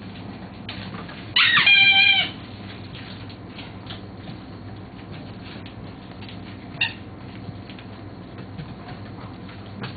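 Border Collie puppy giving one high yelp lasting about a second, about a second and a half in, then a much shorter yip near seven seconds. Faint ticking of small paws in between.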